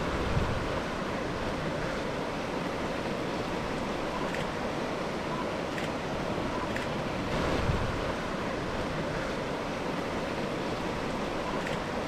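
Steady rush of a mountain stream's running water, with wind rumbling on the microphone and swelling slightly about two-thirds of the way through; a few faint clicks.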